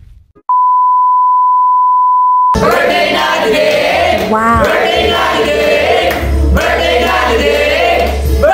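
A single steady high beep held for about two seconds and cut off sharply. Then a group of people singing together.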